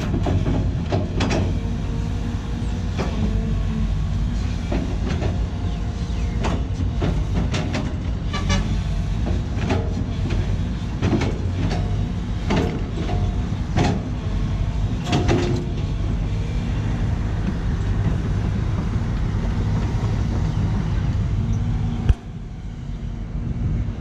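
Sany SY215C crawler excavator's diesel engine running steadily, with repeated sharp metallic clanks and knocks from the bucket and its linkage as it scrapes and trims the dirt slope. The sound drops suddenly in level near the end.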